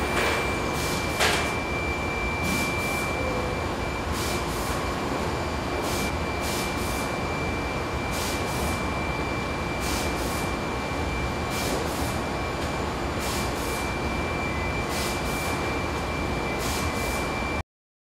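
Bakery production machinery running in the factory: a steady noise with a constant high whine. Short hisses or clicks come in pairs about every one and a half seconds. The sound cuts off abruptly just before the end.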